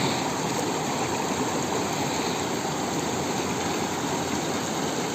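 Mountain river (the Chhoto Rangit) rushing steadily over rocks, a continuous even noise of flowing water.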